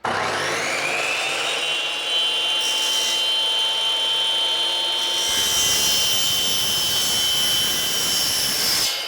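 Chop saw with a metal-cutting blade starting up, its motor whine rising to a steady high pitch, then cutting through a motorcycle fork spring spacer: the cutting noise grows a couple of seconds in and gets heavier from about five seconds, ending near the end as the cut is finished.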